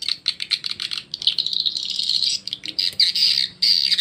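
Recorded swiftlet calls played through the tweeter speakers of a swiftlet-house amplifier, a lure sound for drawing swiftlets into a nesting building: first a run of rapid clicks, then a continuous high twittering, breaking into pulsed chirps near the end.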